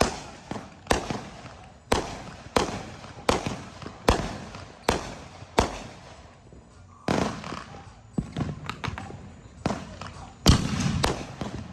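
Fireworks going off: a run of sharp bangs, roughly one a second, then a quieter stretch of crackling, and another loud burst near the end.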